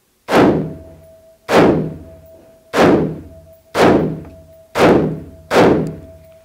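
Six aimed shots from an AR-15-pattern carbine, fired slowly at about one a second, each a sharp report with a short decaying tail: deliberate slow fire to check where the rounds land against the red dot's point of aim.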